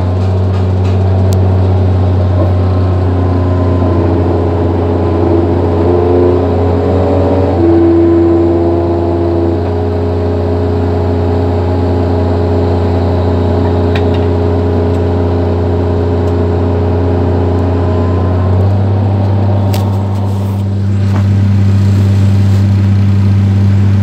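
Excavator's diesel engine running steadily, heard from inside the operator's cab. The engine note changes about three-quarters of the way through.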